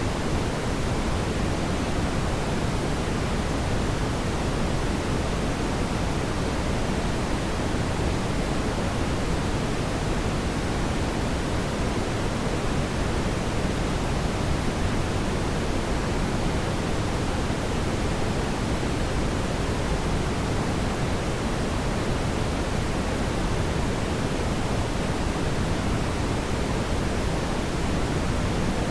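Steady, even rushing noise, strongest in the low range, with no distinct crackles or pops and no change in level.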